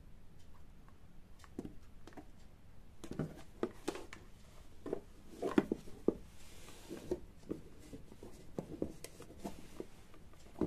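Handling noise from fitting the roof panel onto a scale-model garage diorama: scattered light taps and clicks of the parts against each other and the table, with a brief scraping rub about two thirds of the way through.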